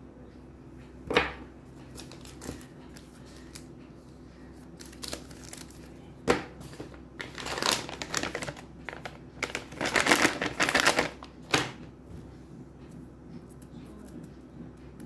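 Plastic and foil candy wrappers and a plastic chocolate pouch crinkling and rustling as they are handled, in scattered bursts that bunch up and are loudest around ten to eleven seconds in.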